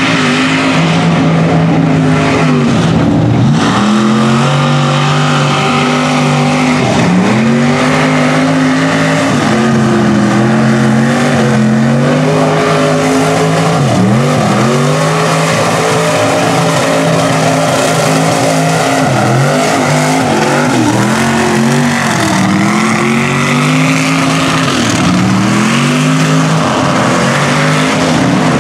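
Lifted mud-bog trucks on oversized tyres driven hard through a mud pit, engines revving high, their pitch dropping sharply and climbing again several times as the trucks bog down and pull through, with the spray of thrown mud and water.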